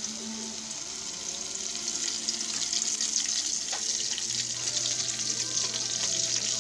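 Sardine patties frying in shallow oil in a metal wok: a steady crackling sizzle that grows louder about two seconds in. A metal spatula knocks against the pan once.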